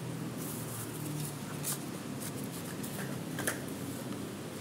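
A worn paper banknote, a Zimbabwe one-hundred-trillion-dollar note, rustling softly as it is turned over and pressed flat on a table by fingers, with a couple of light ticks.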